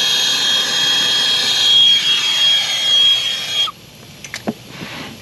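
TurboTorch brazing torch flame burning with a steady hissing roar and a thin high whistle as it heats a copper line-set joint for silver soldering, cut off abruptly about three and a half seconds in. A few light clicks follow.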